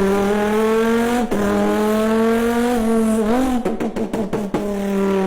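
A man imitating an Audi RS3's engine with his mouth: a steady, buzzing high-rev engine note that rises slightly, with short dips like gear changes about a second in and near the middle, followed by a quick patter of pops before the note picks up again.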